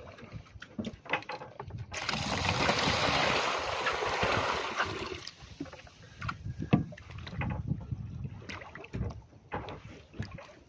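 Water running into a live-bait bucket. It starts abruptly about two seconds in as a steady hiss, lasts about three seconds and cuts off suddenly. Scattered knocks and clicks of handling are heard around it.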